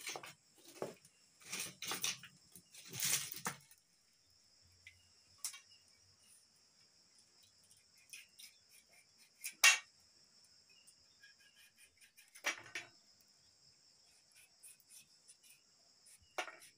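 Crickets chirping in a steady high-pitched drone, over scattered knocks and scrapes of hands working a knife as a chayote squash is peeled over a steel plate. There is a cluster of scrapes in the first few seconds and one sharp clack, the loudest sound, about ten seconds in.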